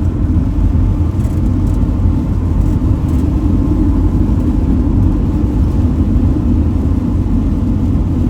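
Camper van driving on the highway: a steady low rumble of engine and road noise, even throughout.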